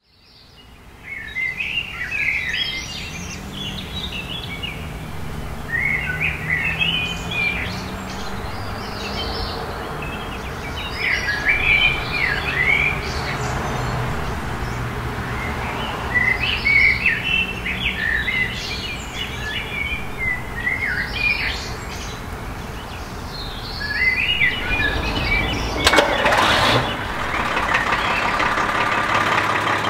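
Birds singing in short chirping phrases every few seconds over a low background hum. About 26 seconds in there is a burst of noise, and then a steady mechanical drone sets in and keeps going.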